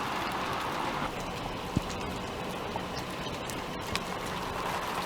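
Steady hiss of falling precipitation, with a few sharp ticks of drops hitting nearby surfaces.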